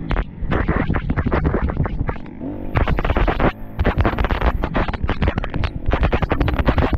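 Enduro dirt bike being ridden hard, its engine revving up and down, buried under rough wind buffeting and a rapid clatter of knocks on the microphone.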